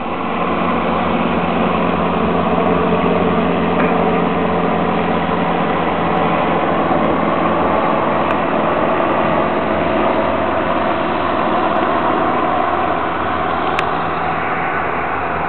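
Robinson R22 helicopter in flight: a steady drone of its piston engine and rotor, getting a little quieter near the end.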